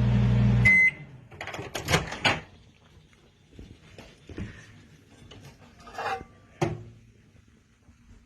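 Microwave oven running with its steady low hum, then stopped early about a second in: the hum cuts off with a short beep. Several clicks and knocks follow, typical of the microwave door opening and the plate being handled.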